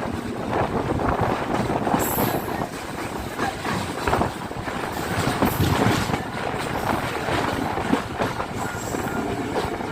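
Yal Devi passenger train running on the rails, its wheels clattering over the track joints, with brief high squeals twice.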